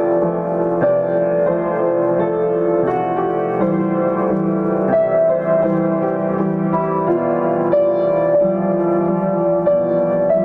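Piano played at a slow, gentle pace, melody notes and chords struck one after another and left to ring over each other. It is an adult learner's playing, about a year and two months into lessons.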